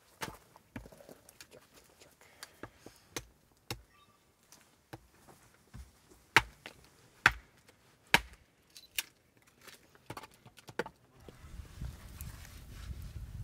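Hatchet chopping and splitting wood: sharp, irregular knocks of the blade into the wood, the loudest about six to nine seconds in. Near the end a steady low rumble takes over.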